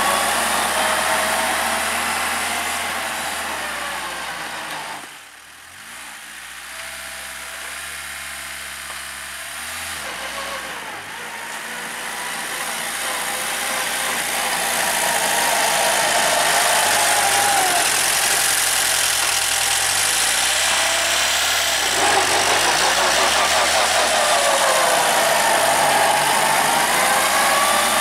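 Homemade tractor's engine running while it clears snow, its note rising and falling as it works. About five seconds in the sound drops away sharply, then builds back up over the next ten seconds and stays loud.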